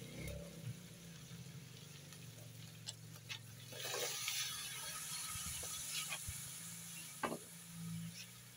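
Sliced green vegetables tipped from a bowl into a hot wok over a wood fire, landing with a rush of sizzling about four seconds in. The pan keeps frying with a faint hiss, and a few sharp taps follow.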